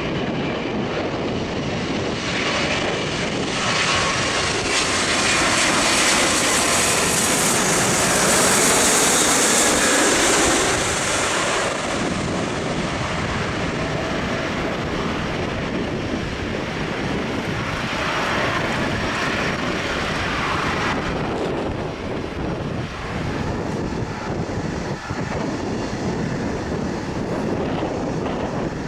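GE90 turbofan engines of a Boeing 777-200ER on final approach and landing: a steady jet rush that swells to its loudest about eight to ten seconds in, then settles lower, with a shorter swell again around eighteen to twenty seconds.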